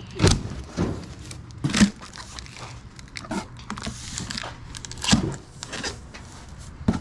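Cardboard box being opened and its contents rummaged through: rustling and crinkling of wrapping with a few sharp knocks and bumps, the loudest in the first two seconds and again about five seconds in.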